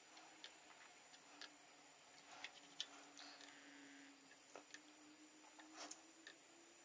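Near silence while a circuit board is hand-soldered: a few faint, irregular ticks and clicks from the iron and solder wire on the joints, over a faint steady hum.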